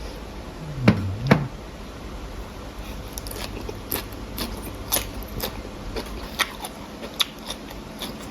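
A person biting and chewing food close to the microphone, with wet, sharp mouth clicks.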